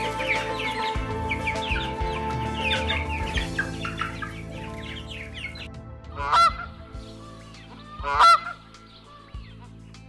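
Greylag goose honking twice, two loud calls about two seconds apart in the second half. Before that, a quick run of high peeping calls, with soft background music throughout.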